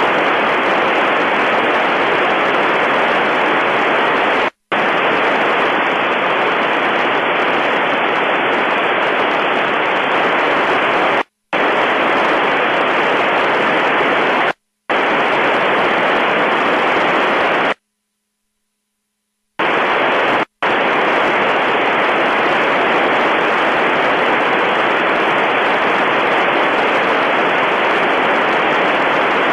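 Icom IC-746PRO receiver hissing with FM static on the ISS downlink frequency, with no voice on the channel. The hiss cuts out to silence several times, once for nearly two seconds near the middle.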